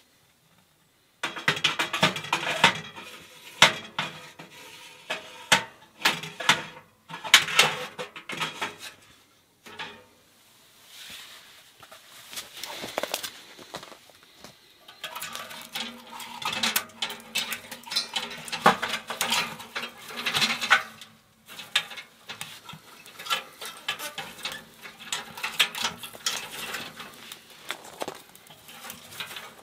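Dry kindling twigs snapping and clattering against the steel grate and firebox of a Winnerwell Woodlander camp wood stove as they are fed to a small fire. Dense runs of sharp cracks and clicks start about a second in, with short pauses between handfuls.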